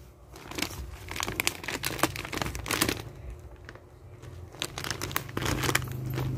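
Plastic snack-bag packaging crinkling as the packs are gripped and handled, in two spells of crackly rustling.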